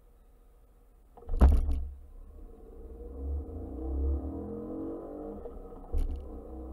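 Ford Focus Mk3 engine heard from inside the cabin during a full-throttle 0–100 km/h run. A loud thump comes about a second and a half in as the car launches. The engine then rises steadily in pitch through first gear. A short sharp knock around six seconds in marks the shift into second, after which the revs climb again.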